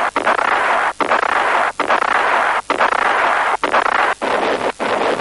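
Battle sound effect of massed gunfire and shell explosions: a steady, dense roar of noise cut by short gaps about once a second.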